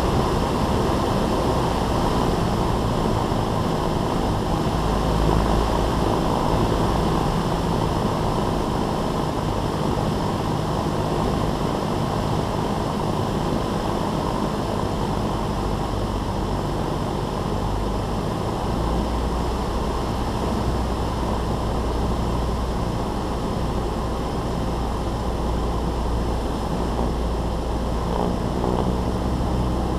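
Cessna 172's piston engine and propeller running steadily in flight, a constant drone heard from inside the cabin.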